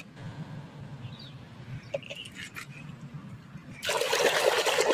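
A hand swishing a plastic toy through a basin of muddy water, splashing, starting about four seconds in; before that only faint small clicks.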